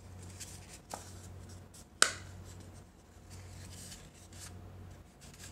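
Paper rustling and scraping as a rolled paper tube is folded and pressed by hand, with a small click about a second in and one sharp click about two seconds in. A low steady hum lies under it.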